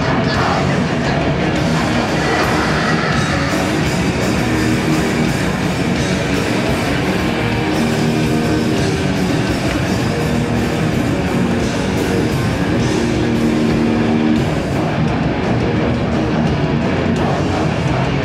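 Hardcore punk band playing live: distorted electric guitars and drums, loud and steady without a break.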